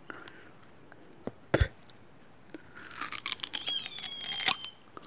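Sugarcane being bitten and chewed close to the microphone: a sharp click about a second and a half in, then about two seconds of dense crunching and scraping from about three seconds in.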